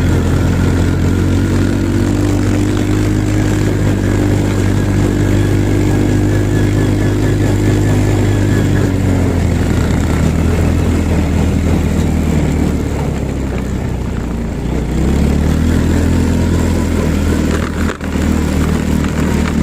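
A motor vehicle's engine running steadily, easing off about halfway through and picking up again near the end.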